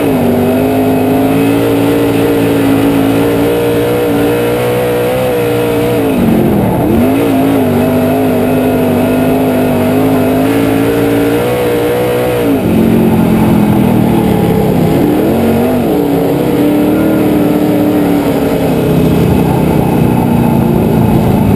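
Onboard sound of a dirt-track race car's engine running hard on hot laps. The pitch holds steady at high revs, then dips as the throttle comes off for the corners, sharply about six and a half seconds in and again from about twelve seconds on, before it climbs again near the end. Wind and tyre noise run underneath.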